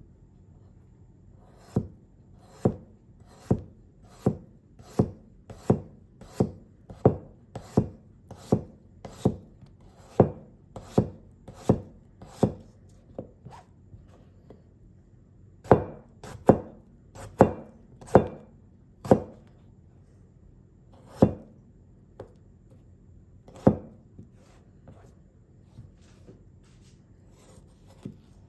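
Small thick C75s carbon-steel cleaver slicing a potato on a cutting board, each stroke ending in a sharp tap of the blade on the board, about three strokes every two seconds. After a pause midway comes a shorter run of strokes, then a few spaced and fainter taps near the end.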